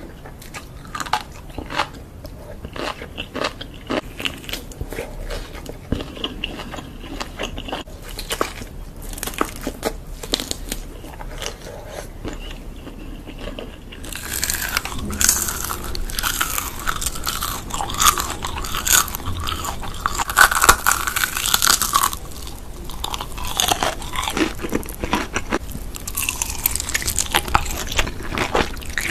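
Close-up eating sounds: biting and chewing crunchy food, with sharp crackling crunches that grow louder and denser about halfway through.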